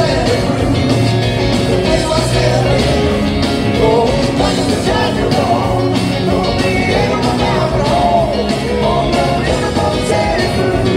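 A live rock band performs on stage, heard from the audience in the hall: drums, electric guitars, bass and keyboards under a sung vocal line.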